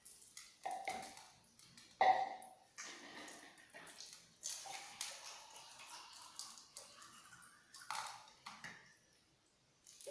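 Close-up eating sounds: crunching and chewing fried chicken, with scattered small clicks, two short louder sounds about one and two seconds in, and irregular crackling from about three to eight seconds in.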